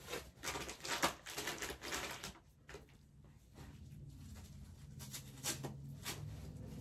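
Rustling and handling noises of a baby being changed, with a few light clicks and knocks; busiest in the first two seconds, then quieter.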